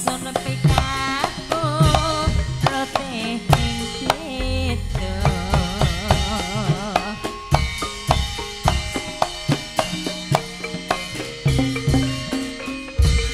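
Music with a busy drum rhythm leading. A wavering melodic line with vibrato runs over the drums in the first half and then thins out, while the drumming carries on.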